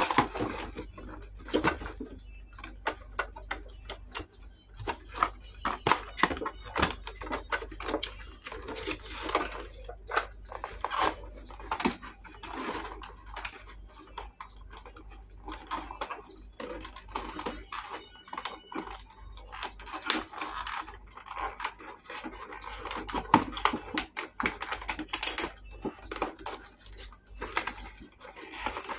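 Cardboard and plastic packaging being handled, with irregular clicks, scrapes and rustles as wire twist ties are pulled out through a toy box's cardboard insert.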